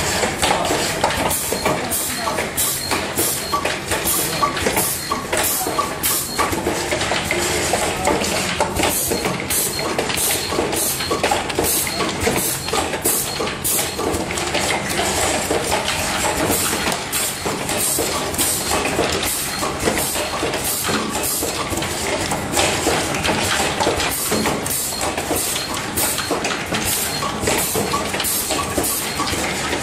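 18650 battery pack assembly machine running: cylindrical cells clink and rattle against one another as they are fed from the hopper through the star wheels. A steady, dense mechanical clatter with frequent sharp clicks throughout.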